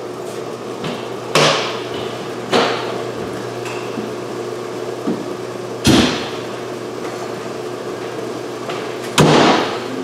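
Four heavy metallic bangs from a fire tanker truck's doors being shut, the last and loudest about nine seconds in as the cab door closes, over a steady low hum.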